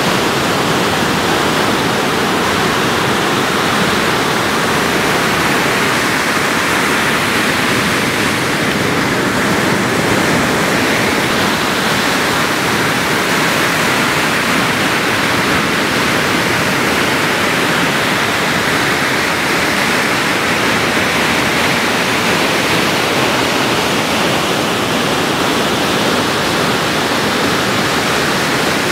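Ocean surf breaking near the shore: a steady, unbroken rushing noise with only slow, gentle swells in loudness.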